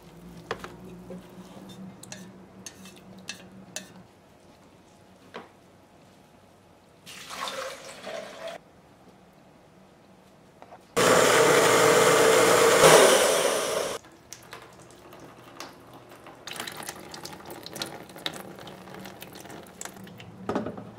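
Making recycled-paper pulp. Wet shredded paper and water are handled in a blender jar with scattered splashes and clicks. Midway a blender runs for about three seconds, loud and steady, pulping the paper into slurry. Then come quieter wet sounds as the pulp is worked on a mould screen.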